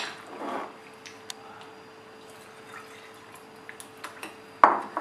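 Milk being ladled with a steel ladle into a glass bowl of fruit, jaggery and nuts: soft pouring and dripping, a clink at the start, faint small ticks, and one louder knock of the ladle near the end.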